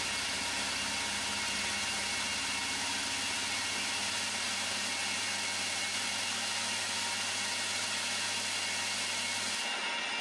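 Vertical milling machine running, its end mill cutting a slot in a clamped metal block: a steady whirr and cutting hiss over a low motor hum. Near the end the high hiss thins out and the hum changes.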